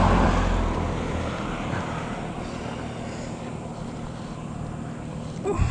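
A motor vehicle's engine, loudest at the start and fading over the first second or two, leaving a steady low engine hum.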